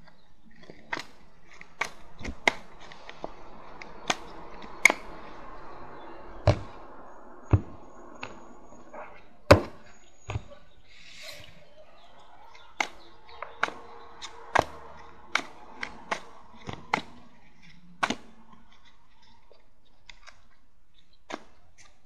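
Tarot cards being shuffled and handled close to the microphone: soft rustling with a couple of dozen sharp, irregular taps and knocks, the loudest about halfway through.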